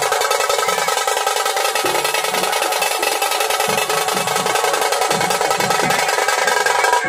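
Music with fast, continuous drumming like a drum roll, over several steady held tones.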